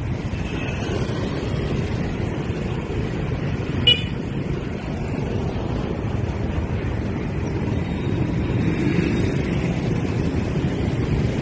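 Steady street-traffic noise and wind rumble on the microphone while riding through motorbike traffic. A single short, sharp horn beep about four seconds in.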